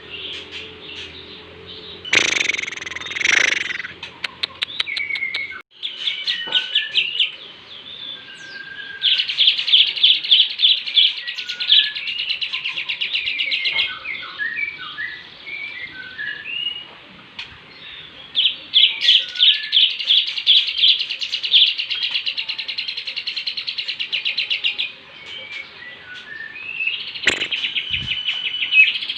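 Lovebird singing its long 'ngekek' chatter: runs of rapid, evenly repeated high chirps lasting several seconds each, with scattered short chirps between the runs and a loud harsh call near the start.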